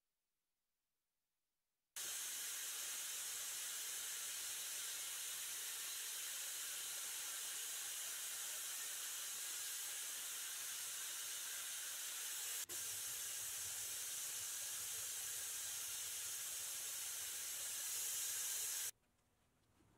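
Steady compressed-air hiss of a powder coating gun spraying red powder onto hanging parts. It starts suddenly about two seconds in, has a brief click partway through, swells slightly near the end, and cuts off abruptly just before the end.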